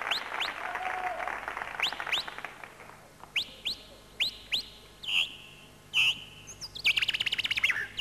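A man imitating the song of a common chaffinch with his voice into a microphone: separate short, sharp rising chirps, then near the end a fast trill of rapidly repeated notes.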